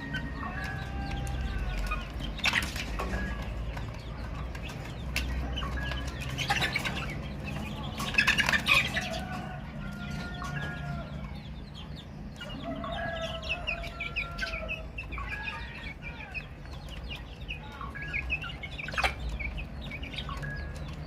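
Baby chicks peeping continuously in short, slightly falling chirps, over a steady low rumble. A few brief scratchy rustling bursts break in, the loudest about eight seconds in.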